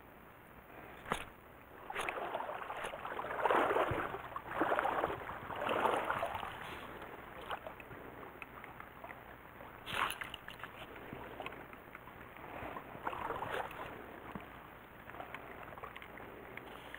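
Stream water sloshing in a few swishes about a second apart, then fainter ones, with a few sharp clicks in between.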